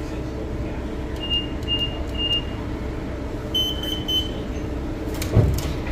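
PCC streetcar running along the track: a steady low rumble with a motor hum. Three short high beeps sound about a second in, then one longer beep about 3.5 s in, and a single thump comes near the end.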